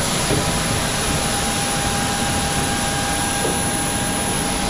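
Jet aircraft turbine running steadily on the ramp: a dense, even rush with a constant high whine on top, as from a parked Boeing 737-800's turbine during boarding.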